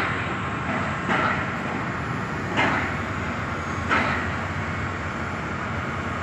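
Steady rumble of heavy construction machinery running at a building site, with a few short scuffing sounds about every second and a half.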